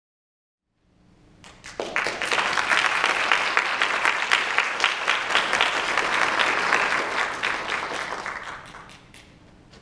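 Audience applauding: the clapping starts about a second in, swells quickly to a steady spell of many hands, and dies away near the end.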